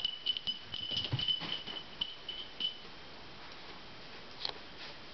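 A basenji licking and nuzzling a damp bath towel: small wet clicks and rustles, with a thin, steady high tone under them that stops about two and a half seconds in. After that it is quieter, with one more click near the end.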